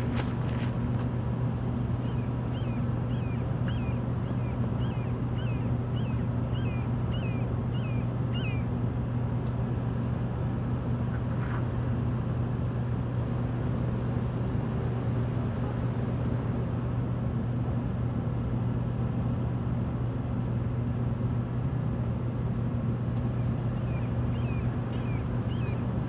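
A steady low mechanical hum. A bird gives a run of short chirps, about two a second, a couple of seconds in and again near the end.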